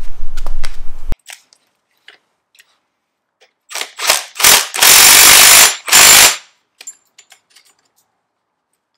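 Milwaukee M12 Fuel cordless hydraulic impact driver hammering on the threaded rod of a strut spring compressor, tightening it to compress a front coil spring. It runs in three short bursts, then one of about a second, then one more short burst.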